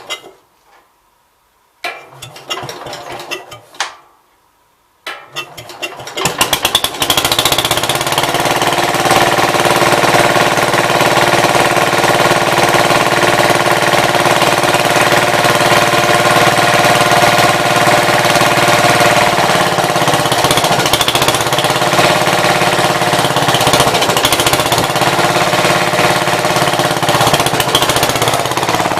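Gravely C10 walk-behind tractor engine giving a few short bursts, then catching about six seconds in and running steadily with a rapid pulsing beat.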